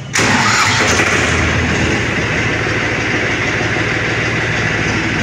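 Powertrac 439 Plus tractor's 2340 cc three-cylinder diesel engine starting: it comes in suddenly and loud a moment into the clip, then runs steadily.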